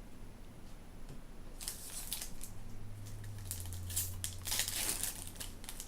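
Foil booster pack wrapper crinkling and tearing as it is opened, a dense run of crackles starting a little under two seconds in.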